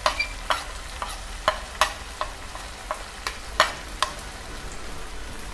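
A metal spoon clicking and scraping against a plate and pan as chilli powder is pushed into the pan, about two or three sharp clicks a second that stop a little after four seconds in. Underneath is a faint steady sizzle of onions and tomatoes frying in oil.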